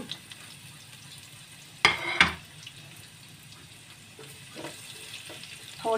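Chopped garlic sizzling faintly in a little oil in a nonstick frying pan over a very low flame. Two sharp knocks, close together, come about two seconds in.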